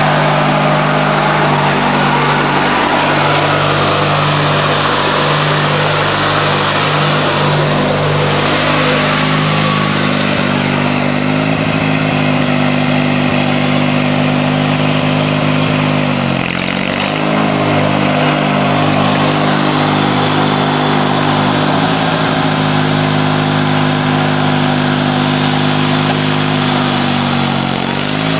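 The Briggs & Stratton 16 hp opposed-twin engine of a 1990 Montgomery Ward lawn tractor running smoothly under way, its ignition coil newly replaced. The engine note sags briefly about two-thirds of the way through and again near the end, then recovers.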